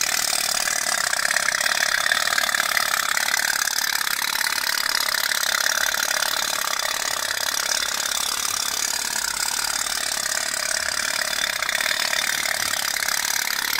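Toy pop-pop steam boat running steadily: a candle heats its small boiler, and the water pulsing through its two pipes makes a continuous rapid putt-putt as the boat drives itself across the water.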